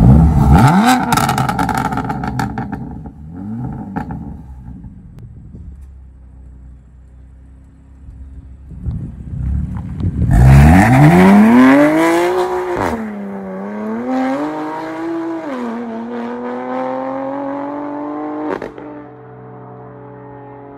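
BMW F80 M3's S55 twin-turbo straight-six, fitted with VRSF downpipes and Active Autowerke equal-length resonated midpipes. It revs loudly at first and falls back to a low idle, then about halfway through pulls away hard with the pitch climbing and dropping at each upshift. A sharp crack comes near the end, after which it fades as it moves off.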